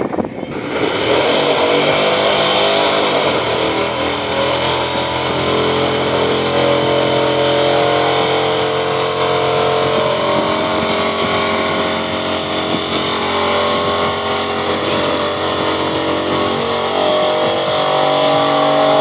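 Car engine held at high, fairly steady revs during a burnout, with the tyres spinning on the spot. The revs climb sharply in the first second, then hold with slight rises and falls.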